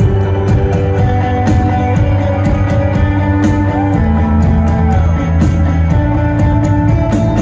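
Rock band playing live: held chords over steady drum hits.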